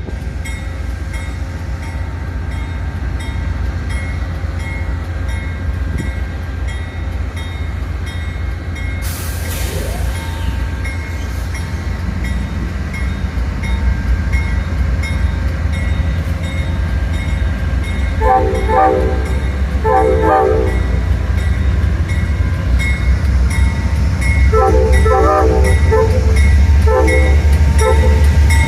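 Amtrak P42 diesel locomotive approaching, its engine rumble growing steadily louder, with its Nathan K5LA five-chime horn sounding four blasts in the second half: two short blasts, then a longer one and a short one.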